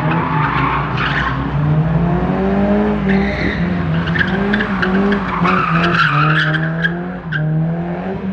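A car drifting: its engine held high in the revs, rising and falling, with the tyres screeching in spells about a second in and again from about three to seven seconds in.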